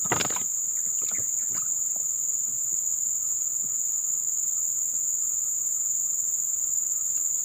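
Insects, crickets or cicadas, keeping up a steady, high-pitched drone, with a few short knocks or rustles in the first second and a half.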